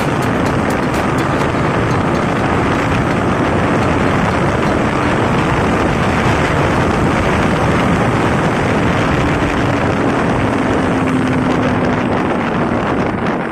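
Yamaha MT-15's 155 cc single-cylinder engine running under way, mixed with heavy wind rush on the microphone; the engine note sags a little in pitch near the end.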